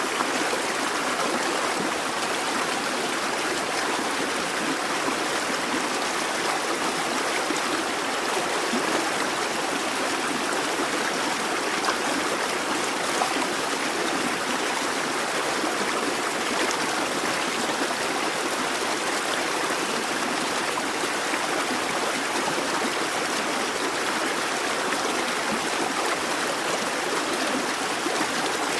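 A busy babbling brook: water running and splashing over stones in a steady, even rush.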